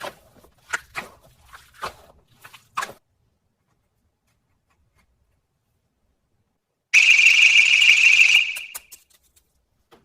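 A loud alarm-like buzz sounds once for about a second and a half, near the end, after a string of short clicks and squelches in the first few seconds.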